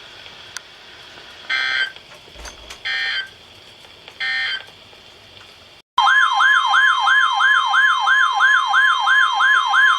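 NOAA Weather Radio alert signals. Three short bursts of digital data tones close the previous message. After a brief dropout, a loud alarm tone starts, one steady pitch with a siren-like warble rising and falling over it about three times a second, announcing the next warning.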